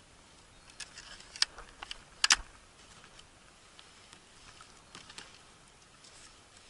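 Oars of an inflatable boat knocking and clacking as they are worked, with a cluster of sharp knocks in the first two and a half seconds, the loudest a double knock, then a few lighter clicks.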